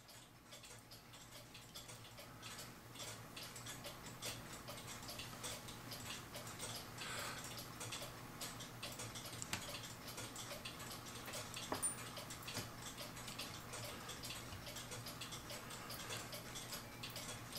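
Faint, steady ticking of a clock, with a few small metal clicks from a screwdriver and brass parts being handled, over a low steady hum.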